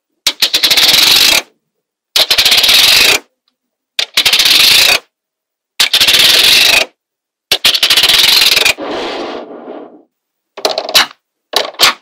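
Small magnetic balls in a sheet clicking and rattling against each other as rows are peeled up and snapped back down. There are five bursts of rapid clicking, each about a second long, then a few separate snaps near the end.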